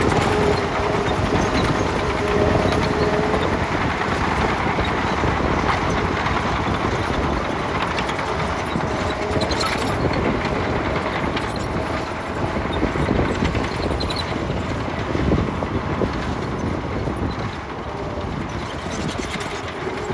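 Heavy earthmoving machinery working: a steady diesel engine rumble under load, with a faint whine that comes and goes.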